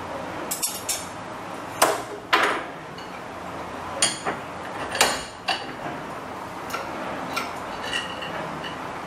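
Small metal hand tools clinking, tapping and scraping against a metal hinge pin clamped in a bench vise: a dozen or so separate sharp clicks, a few of them ringing briefly.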